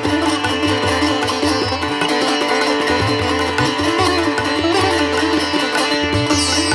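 Background instrumental music: a plucked-string melody over a steady drone.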